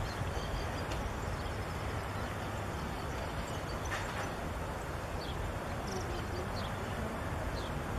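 Outdoor field ambience: a steady low rumble of wind on the microphone, with scattered faint high chirps.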